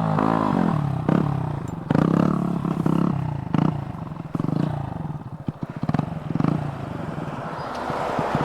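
Motorcycle engine revving up and down over and over, its pitch rising and falling with sudden jumps about once a second.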